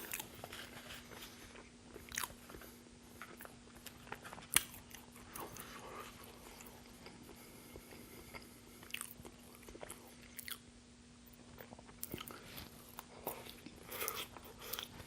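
Close-miked chewing of a mouthful of burger, with wet mouth clicks and small bites scattered through, one sharper click about four and a half seconds in. A faint steady hum runs underneath.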